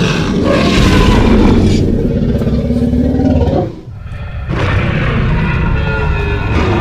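Sound-designed dinosaur roars over a deep rumble, in two long loud stretches with a short break about four seconds in.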